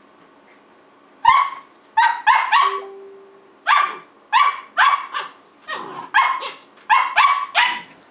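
Puppy barking at a playmate: about a dozen short, high-pitched yappy play barks in quick clusters, starting about a second in.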